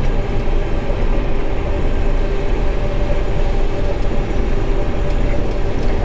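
John Deere straw-walker combine running, heard from inside the cab: a steady, loud mechanical rumble with a few held tones from the engine and threshing drives.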